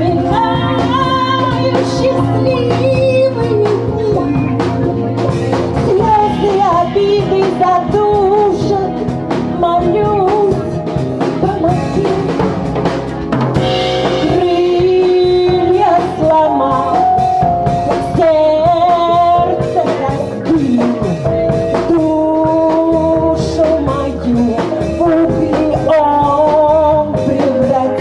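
Live band playing a song: a female lead voice singing a gliding melody over sustained chords, with a drum kit keeping a steady beat.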